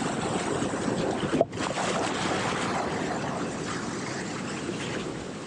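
Whitewater of a river rapid rushing steadily, with a brief dip about a second and a half in.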